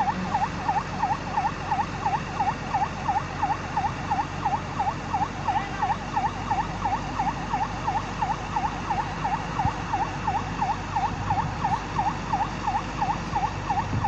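Fire engine's electronic siren sounding a fast yelp, its tone dipping and rising again about three to four times a second without a break.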